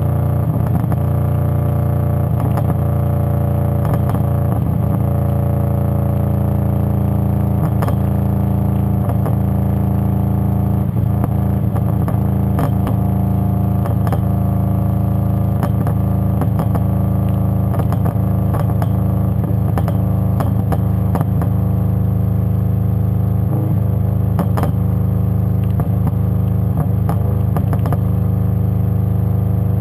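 2005 Subaru WRX's turbocharged flat-four heard at the tailpipe through a catless 3-inch downpipe and cat-back exhaust, running at a steady cruise: a steady, deep exhaust drone that holds nearly the same pitch throughout.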